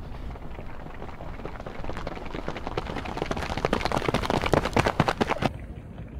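Rapid footfalls of several sprinters striking a rubber track, growing louder as they approach, loudest as they pass close by, then cutting off suddenly about five and a half seconds in.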